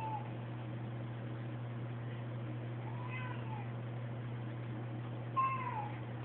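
Domestic cat meowing twice, a faint meow about three seconds in and a louder one falling in pitch near the end, over a steady low hum.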